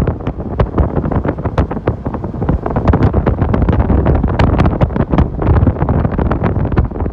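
Wind buffeting the microphone of a moving vehicle, a loud steady rumble with vehicle road noise underneath and frequent irregular crackling pops.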